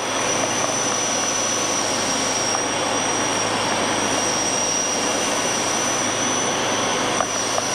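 Steady in-cabin noise of a Bristell light aircraft in flight: its propeller engine running evenly under the rush of airflow, with a thin, steady high tone on top.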